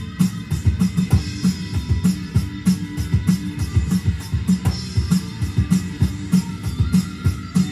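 Electronic drum kit played in a fast, driving rock groove, with bass drum, snare and cymbal hits in a steady rhythm over a hard rock recording.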